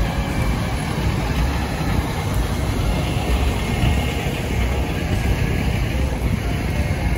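City street traffic: a steady low rumble of engines and road noise.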